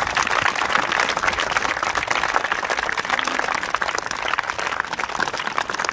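Many schoolchildren applauding together, a dense and steady clatter of hand claps.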